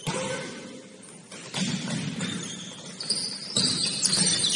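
Basketball game noise on an indoor court: a sharp knock at the start, thuds of the ball and feet, and high sneaker squeaks on the floor in the second half.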